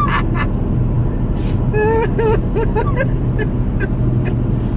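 Steady road rumble inside a moving car's cabin, with a young child giving a few short high-pitched giggles about two seconds in.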